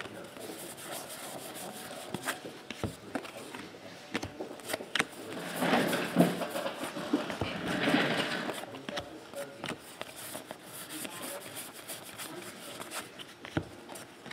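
Stack of baseball trading cards being sorted through by hand: card stock sliding and rubbing, with many small ticks as cards are flicked and laid down on a table. There is a louder stretch about six to eight seconds in.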